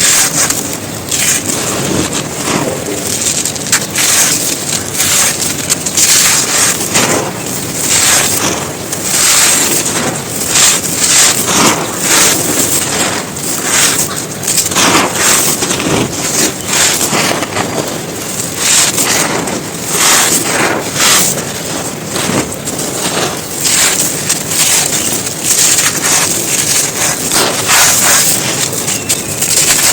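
Dry, hard chunks crumbled and crushed by hand in a dense, irregular run of gritty crunches and crackles.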